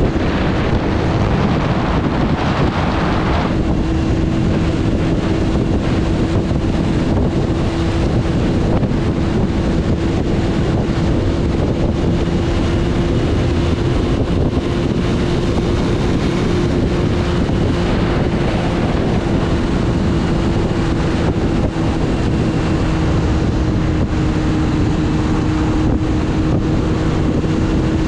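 Sport motorcycle cruising at road speed: wind buffeting the microphone over the steady drone of the engine, which holds a near-constant pitch. The wind hiss is stronger for the first few seconds.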